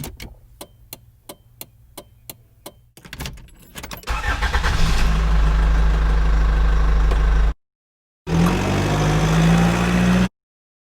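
Car engine start sound effect: a run of evenly spaced clicks, about three a second, then the engine catches and runs loudly for about three seconds before cutting off. After a short gap it runs again with its pitch rising, as in a rev, and stops suddenly.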